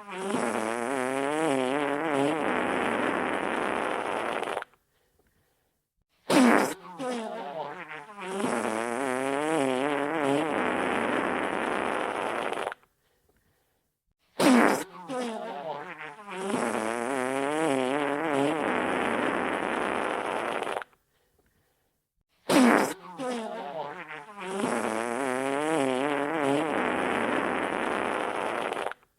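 Wet fart sound effect played on a loop. Each one opens with a sharp burst, then runs into about six seconds of wet, sputtering flutter with a wavering pitch, and stops for a short silent gap before the next. It repeats about every eight seconds, three full times after the tail of one at the start.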